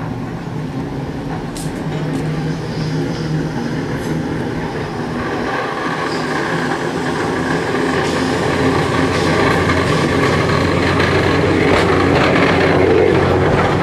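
Open-top electric toastrack tram approaching along the street track and passing close by: a steady motor hum with wheels rumbling on the rails, growing louder as it nears.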